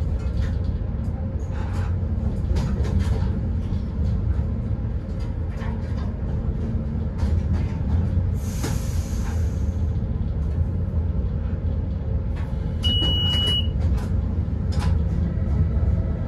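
A Newag Dragon locomotive running, heard from the cab: a steady low rumble with scattered clicks, a brief hiss about eight seconds in, and a short high beep around thirteen seconds in.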